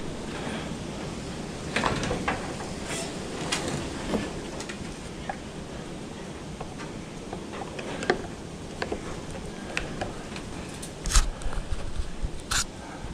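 Scattered metallic clicks, scrapes and knocks of a screwdriver prying at the crimped aluminum tabs of a car radiator's plastic end tank, and of the radiator being handled, with a couple of louder knocks near the end.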